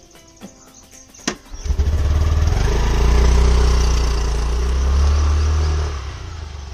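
A click, then a small scooter engine, the Honda Activa 125's, starts about a second and a half in and runs loudly, easing off near the end.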